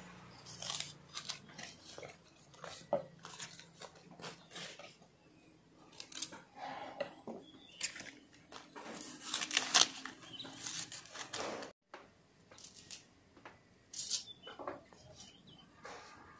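Scattered light clicks, taps and rustles of vegetables being handled and trimmed with a knife on a wooden cutting board, with a louder cluster of taps about ten seconds in.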